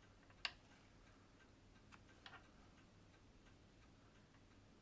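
Faint, steady clockwork ticking, with one sharp click of a metal tool against the watch parts about half a second in and a couple of softer clicks around two seconds in.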